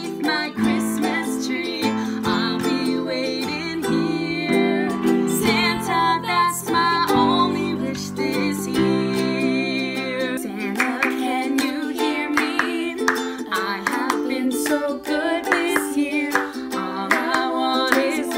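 Two women singing a Christmas pop song to ukulele strumming and electric keyboard. The keyboard's low notes drop out about ten seconds in, leaving voices and ukulele.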